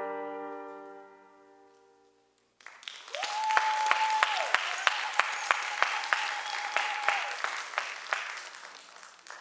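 Recorded music ending on a held brass chord that fades out, then, after a brief pause, an audience applauding with sharp individual claps. A single high-pitched cheer is held for about four seconds over the applause.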